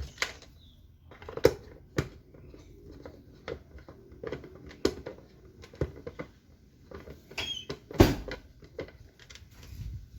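Irregular plastic clicks and knocks from handling a blender base and fitting its bottom screws, with two louder knocks about one and a half and eight seconds in.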